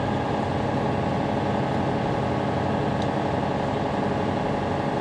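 Semi-truck diesel engine running steadily, heard from inside the cab as the truck rolls slowly: an even, unchanging hum.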